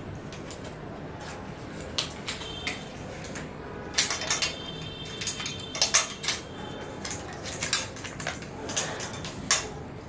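Plastic clothes hangers with metal hooks and clips clicking and clattering against each other and against the metal rail of a clothing stand as they are hung up one by one, with a brief metallic ring about four seconds in.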